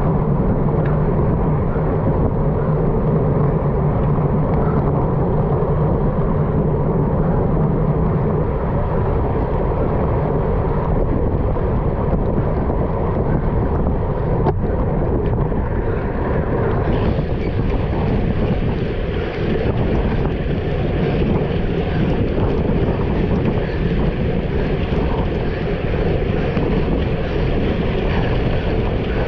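Steady wind noise buffeting the microphone while moving at speed on a wet road, with rushing tyre and spray hiss. A low hum underneath fades out about eight seconds in, and the hiss grows brighter about seventeen seconds in.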